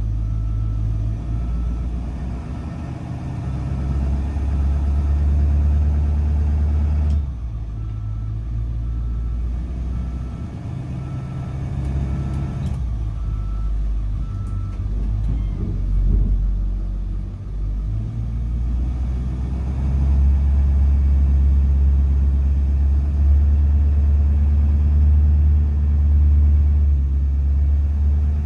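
Bus engine and drivetrain running while driving slowly, heard from inside the cab: a low rumble that rises and falls, getting louder about two-thirds of the way in. A faint high beep repeats through the first half.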